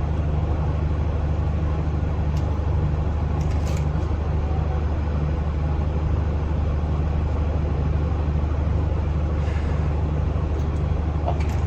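Steady low hum with background noise, unchanging throughout, with a few faint light clicks and taps.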